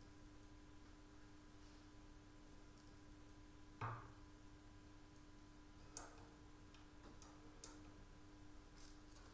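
Metal parts of a bassoon reed gouging machine being handled: one sharp knock about four seconds in as the carriage is handled, then a few light clicks in the second half, over a faint steady hum.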